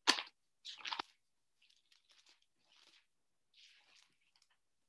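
Thin Bible pages being turned: two short paper rustles in the first second, then fainter rustling and flicking as the pages are leafed through.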